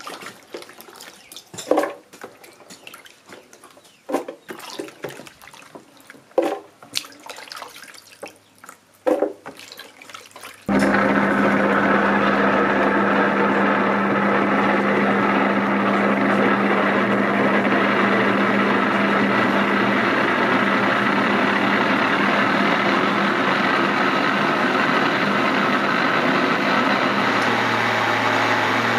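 Chopped onion, garlic and ginger being handled into a plastic blender jar, with a few knocks and splashes, then about ten seconds in an electric countertop blender starts suddenly and runs steadily, puréeing them with water. Its hum shifts slightly in pitch near two-thirds of the way through as the mixture turns to a smooth purée.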